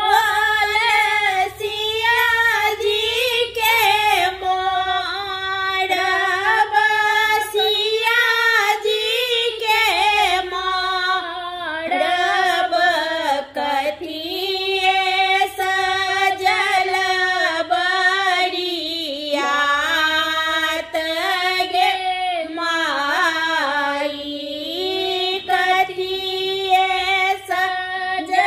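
Two women singing a Maithili wedding song together in unison, unaccompanied, in one continuous melodic line.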